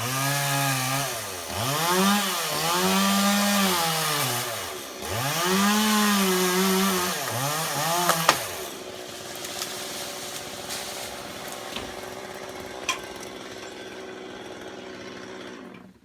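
Two-stroke chainsaw cutting through bay tree wood, its pitch sagging as it bogs in the cut and rising again three times. About eight seconds in there is a sharp click, after which the saw runs steadily and more quietly.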